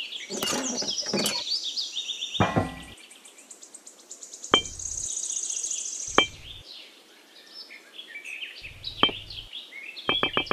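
High chirping calls like birdsong, with three sharp clicks spread through the middle and a fast run of ticks starting near the end.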